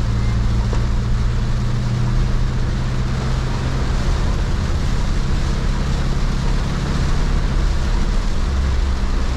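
Cabin noise inside a Toyota van driving in heavy rain: a steady engine and road drone, with the hiss of rain and tyres on the wet road.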